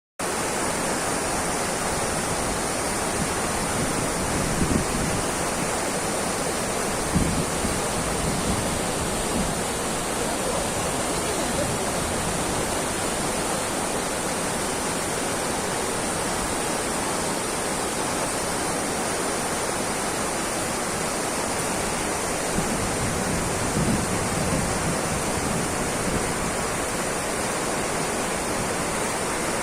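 Waterfall: a steady, dense rush of falling water, with a few brief low bumps along the way.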